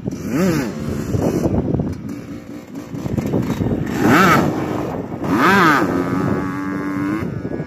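Dirt bike engine revved three times, each rev rising and falling in pitch, as the rider lifts the front wheel into a wheelie. Near the end it holds a steady pitch for about a second.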